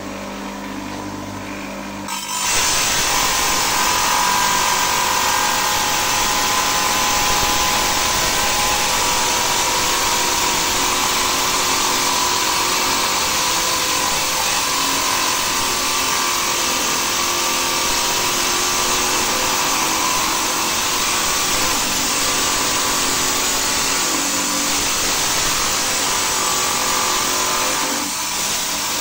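Small stone-cutting saw's motor running unloaded, then about two seconds in its blade bites into a stone and grinds steadily through the cut, with a brief dip near the end.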